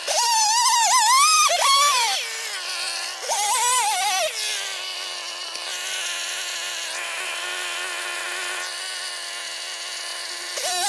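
Stihl chainsaw revving high with a wavering pitch, dropping to idle about two seconds in, revving briefly again near the four-second mark, then idling steadily before it revs up again at the very end.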